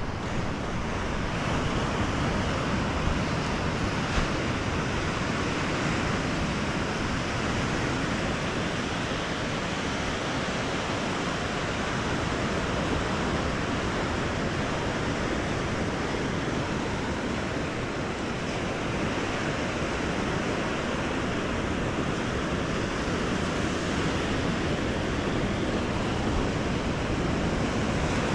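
Ocean surf breaking and washing onto a beach: a steady rush of waves with no clear pauses.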